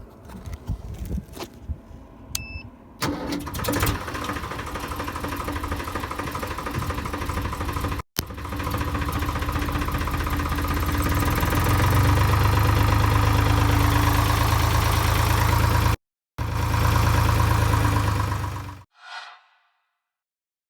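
Deutz DX 3.50 tractor's diesel engine started by radio remote: after a few clicks and a short beep it cranks and catches about three seconds in, runs steadily, is throttled up and gets louder around the middle, then is shut off and dies away near the end.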